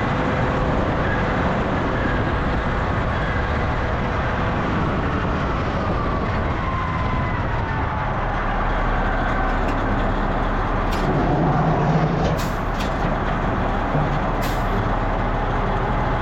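Heavy diesel machine running steadily under load, with a faint whine that slides down in pitch about halfway through and a few sharp clicks in the second half.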